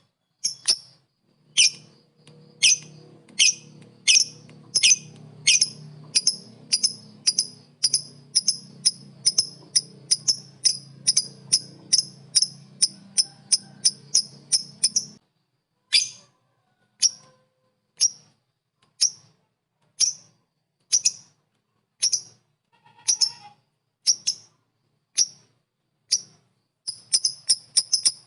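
Lovebird giving its 'ngekek' call: a long string of sharp, high chirps that quickens to about four a second, breaks off about halfway, then resumes at about one a second and speeds up again near the end. A low steady hum runs beneath the first half and stops with the break.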